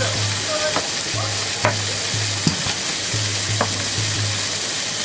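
Diced bacon sizzling in a frying pan over a gas burner, a steady hiss, with a few sharp clicks and a low hum that comes and goes.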